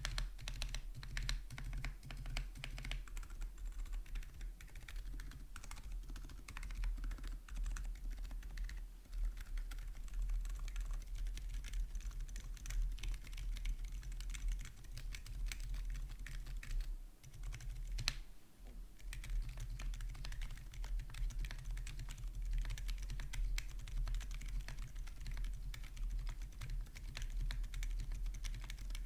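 Custom HLB PoorKoï V1 mechanical keyboard with Akko Penguin switches, a brass plate, no foam and double-shot PBT Cherry-profile keycaps. Keys are pressed one after another in a key test, then typed on continuously from about two-thirds of the way in.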